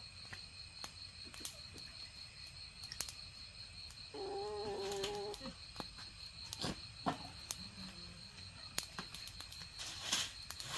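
A single drawn-out animal call, just over a second long, about four seconds in, over a steady high-pitched background whine with scattered light clicks; rustling near the end.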